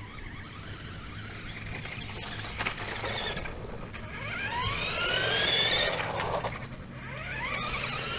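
Radio Shack Lightning R/C car's electric motor whining, rising in pitch as the car speeds up, twice: from about four seconds in and again near the end.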